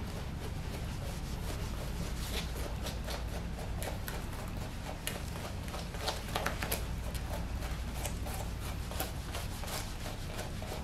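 Grooming brush and comb raking through a schnauzer's matted coat during dematting: irregular short scratchy strokes over a steady low hum.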